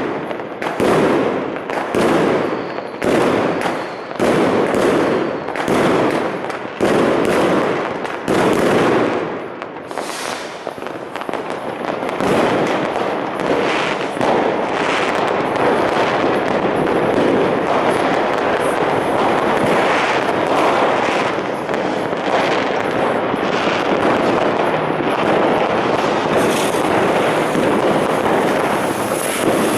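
New Year's Eve fireworks and firecrackers going off in a street: separate loud bangs in quick succession for the first third, then merging into a dense, continuous barrage of bangs and crackling.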